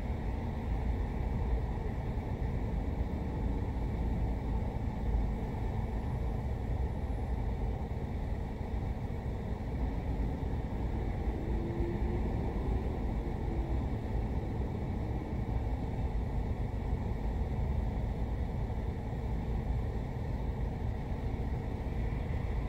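Car idling at a standstill, heard from inside the cabin as a steady low rumble.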